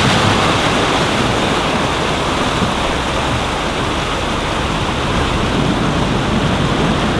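Loud, steady rush of a fast-flowing river, with the wash of a Toyota Land Cruiser wading through the ford.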